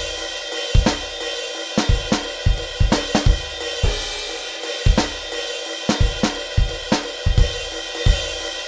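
Solo drum-kit track playing: kick and snare hits about twice a second under a steady wash of cymbals and hi-hat. It is heard with the signal-enhancer plug-in and the master-bus effects switched on.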